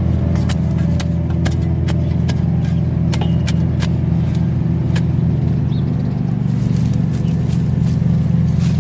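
A steady, loud motor drone, like an engine running at constant speed, with many sharp clicks and snaps scattered over it.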